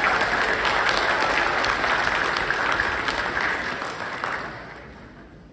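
Audience applauding, the clapping dying away after about four seconds.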